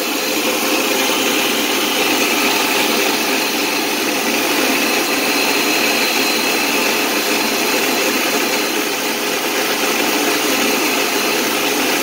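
Impex mixer grinder running steadily at full speed, its steel jar grinding cooked spinach, green chillies and cumin into a smooth paste.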